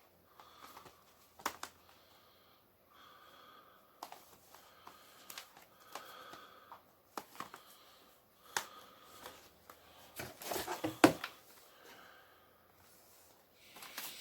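Plastic Blu-ray cases and their packaging being handled and sorted: scattered clicks and taps, with a louder stretch of rustling and crinkling about ten seconds in.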